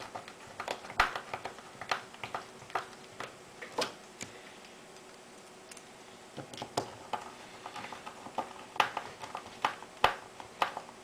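Spring-return toggle switches on a small plastic ROV control box being flicked back and forth by hand: a run of sharp, irregular clicks that pauses for a couple of seconds in the middle.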